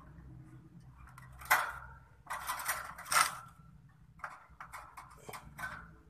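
A caged sooty-headed bulbul being hand-fed through the bars of a wire cage: a run of irregular clicks, scrapes and rustles from the bird pecking at the food in the fingers and from the hand against the cage wires. The loudest ones come about a second and a half in and near the middle.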